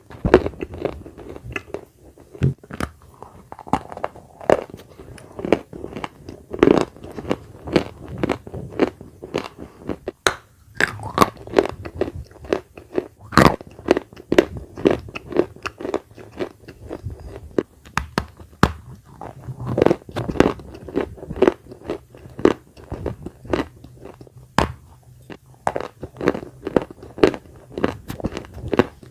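Close-miked biting and chewing of dry edible clay (khawa clay), a run of sharp, irregular crunches.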